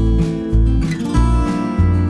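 Intro music led by strummed acoustic guitar, with a steady beat of about two strong low pulses a second.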